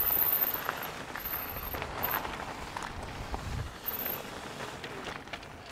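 Mountain bike riding down a dirt flow trail: a steady rushing noise of tyres rolling and air moving past, with a few small clicks and rattles from the bike.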